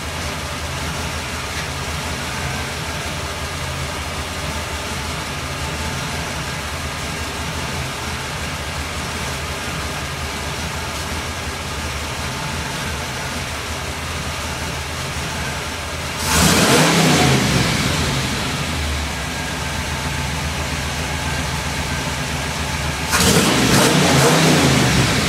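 Jeep CJ5's 350 Chevy small-block V8 idling steadily, revved up twice, about 16 seconds in and again about 23 seconds in, each rev rising and falling back to idle.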